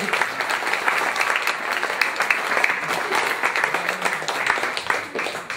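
Audience applauding: dense, continuous clapping from many hands that dies down near the end.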